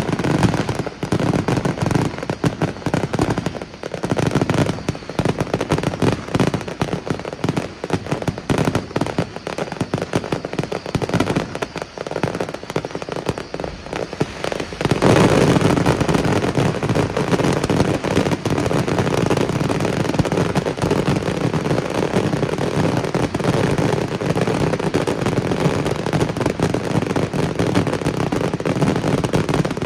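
Fireworks display with rapid, dense reports and crackling. About halfway through it thickens into a louder, continuous barrage of bangs.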